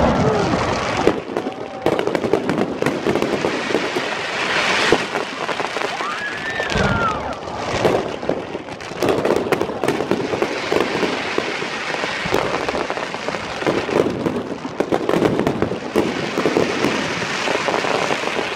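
Aerial fireworks bursting in a continuous display: repeated bangs and dense crackling run on with no real pause.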